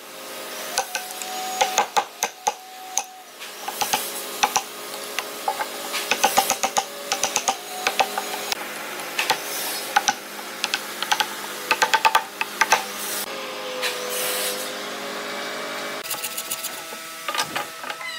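Wood chisel being tapped into a hardwood joint: quick clusters of sharp clicking knocks as the blade is driven and chips break away, over a steady background hum.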